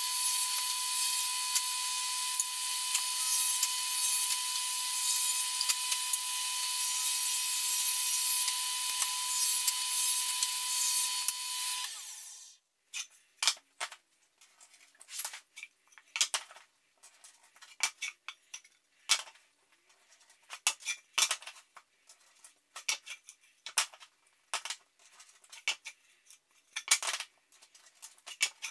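Table saw running steadily with a whine and a hiss as it cuts a plywood panel, stopping suddenly about twelve seconds in. After that come scattered short knocks and taps of plywood pieces being handled and fitted together.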